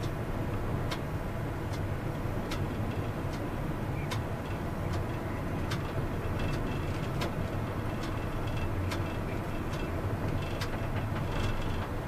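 Steady low rumble of a KCSV-6 tram running along the track, heard from the driver's cab, with a sharp tick repeating about every 0.8 seconds.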